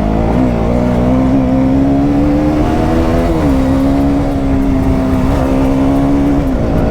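Motorcycle engine running steadily under load while climbing a hill road, its pitch dipping slightly about three seconds in, with wind rumble on the microphone.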